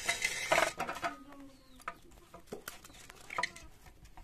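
Hand mixing and rubbing flour dough in a stainless steel bowl, a rough scraping rush in the first second followed by scattered light clicks of fingers and bowl.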